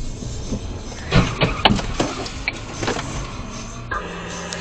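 Car crash heard from inside a following car: a loud impact about a second in, then several more sharp knocks and crunches over the next two seconds, over the steady hum of the car's own running.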